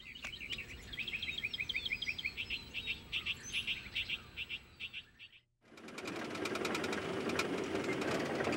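A bird calls in a fast run of short chirps, about four or five a second. The sound cuts out briefly, and then an old Ford pickup truck's engine runs steadily, growing slightly louder.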